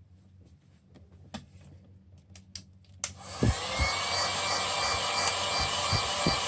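Faint clicks and taps, then about three seconds in a small electric blower motor switches on. It spins up with a brief rising whine and runs steadily with a rushing of air, with a few dull thumps of handling over it.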